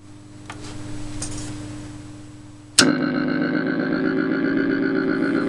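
V-Tone guitar amplifier hissing and humming just after being switched on; about three seconds in, a click, and a homemade light-controlled phototheremin starts sounding through it as a loud, steady electronic drone of several stacked tones.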